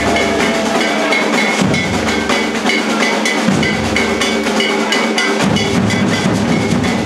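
Maracatu nação percussion ensemble playing live: alfaia bass drums and other hand percussion in a dense rhythm of drum strokes, with a short high ringing note repeating through it.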